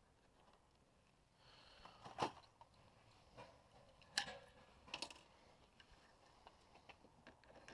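Near silence broken by a few light knocks and clicks, the sharpest about two seconds in and about four seconds in.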